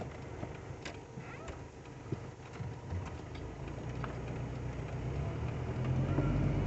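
Motorhome engine and road noise heard from inside the cab, a low hum that grows louder over the last few seconds, with a few light ticks.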